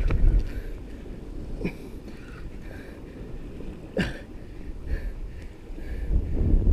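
Wind buffeting the camera microphone on a sea cliff as a low rumble, strongest at the start and again near the end, with three short sharp knocks or splashes a couple of seconds apart.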